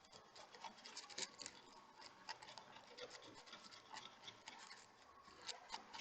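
Faint scratching and small irregular clicks of a hand tool working on the parts of an opened smartwatch.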